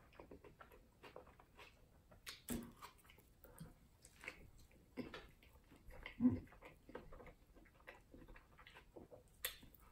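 Close-up eating sounds of a cheeseburger being chewed: soft wet mouth clicks and lip smacks, with a few short low mouth noises a couple of seconds apart.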